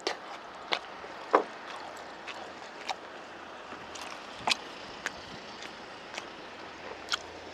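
Close-miked mukbang eating sounds: chewing and wet mouth smacks of a person eating saucy braised pork ribs, with irregular sharp clicks, the loudest about one and a half seconds in and again about four and a half seconds in.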